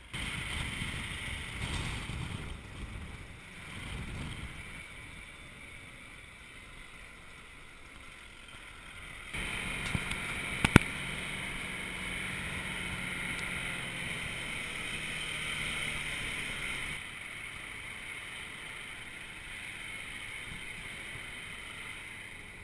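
Four-wheel-drive vehicle driving over sand, its running engine mixed with wind noise on an outside-mounted camera microphone. The sound jumps abruptly louder about nine seconds in, with one sharp knock shortly after.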